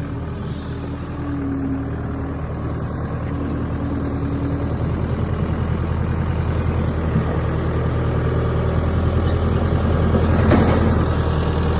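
Skid steer engine running steadily and growing gradually louder, with a brief held whine twice in the first few seconds and a single sharp knock near the end.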